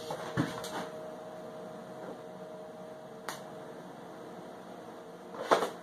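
Steady electrical hum of a switched-on MIG welder, with a few light knocks as the welding gun and its cable are handled, and a louder clatter near the end.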